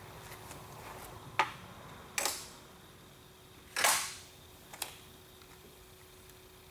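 Sharp clicks and snaps from a seal being worked down into place by hand. There are four of them over about three and a half seconds; the third is the loudest and fades out over a fraction of a second.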